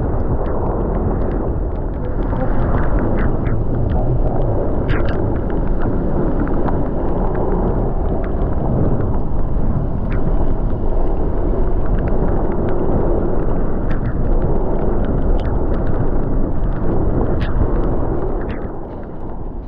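Ride noise from a Honda ADV160 scooter on the move: a loud, steady rush of wind and road noise on the microphone, with a few sharp clicks. It eases off about a second before the end.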